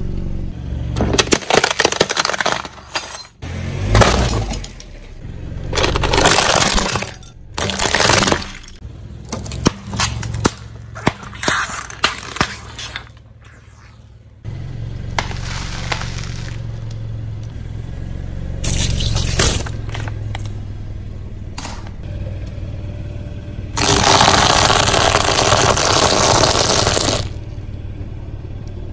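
Car tyre rolling over and crushing a series of items: irregular cracks, snaps and squelches, plastic pouches of liquid bursting, and about three seconds of loud dense crunching late on as brittle snacks are ground under the tyre. A low steady hum of the car's engine runs beneath from about halfway.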